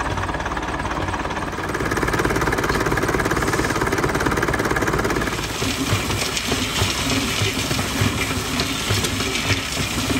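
Nuffield 4/60 tractor's four-cylinder engine running steadily as it drives a tractor-mounted Teagle cement mixer, working against the heavier load of the mix. About halfway through, the sound turns to the churning rattle of wet concrete tumbling in the turning drum, with repeated low thumps.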